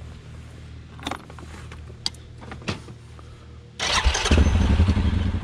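Suzuki ATV engine started with a sudden burst nearly four seconds in, catching at once and running with a fast low pulsing. Before it, a low steady hum and a few light clicks.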